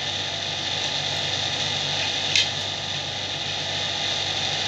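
Steady mechanical hum with a hiss over it, constant background machine noise, and one sharp click from the metal knitting needles about halfway through.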